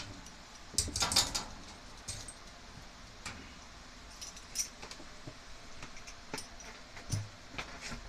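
Metal hand tool and garage door spring hardware clinking and rattling: a quick cluster of clinks about a second in, then scattered single clicks.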